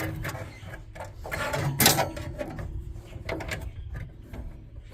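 Handling noises of a wire being fed through a hole in a pellet smoker's control box: rustling and light clicks, with one louder scrape about two seconds in.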